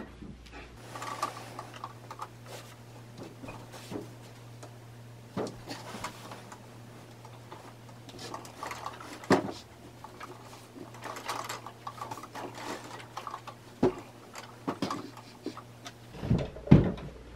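Bare feet shuffling and pressing an area rug flat over carpet against the base of a bookcase: soft rustles and scuffs with a few dull knocks, the sharpest near the end, over a steady low hum.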